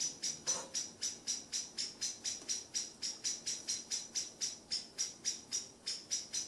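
An insect calling: an even, steady train of short high-pitched chirps, about four a second.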